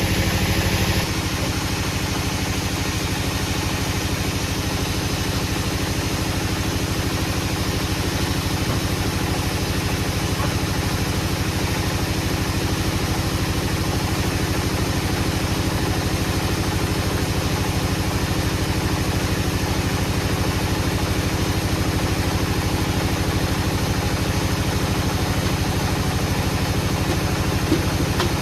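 An engine running steadily at an even speed, with no revving. It drops a little in level and shifts in tone about a second in.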